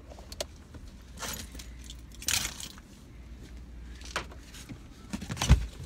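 Handling noise of a phone being set up against a car's steering wheel: scattered clicks, a brief rustle a little over two seconds in, and a heavy thump near the end, with a jingle like car keys.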